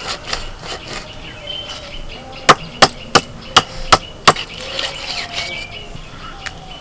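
Sharp knocks of a large katla fish tail being chopped into steaks on a boti blade over a wooden block, forcing through the thick backbone: a few light knocks at the start, then a run of about six loud ones, nearly three a second, around the middle. The boti is not very sharp.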